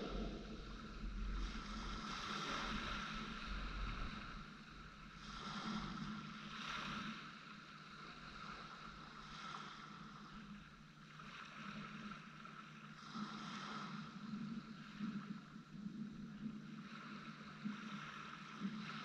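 Small waves washing onto a gravel beach, swelling and falling back every few seconds, with wind rumbling on the microphone for the first few seconds.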